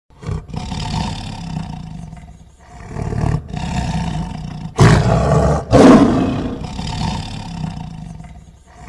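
A large wild animal roaring: a run of long, rough calls, the two loudest just after the middle.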